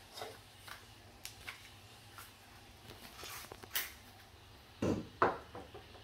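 Light clicks and scrapes of a pole-mounted bulb changer working a light bulb out of a ceiling lamp socket, with a couple of louder knocks about five seconds in.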